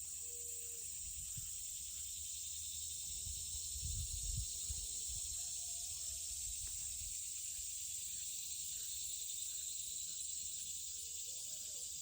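A steady high-pitched insect chorus, with a faint rapid even pulse. Low rumbles of wind on the microphone come about three to four seconds in.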